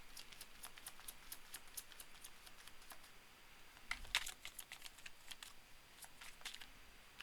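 Tarot cards being shuffled and handled: a faint run of light, quick card clicks, about six or seven a second at first, then thinning out, with a short cluster about four seconds in.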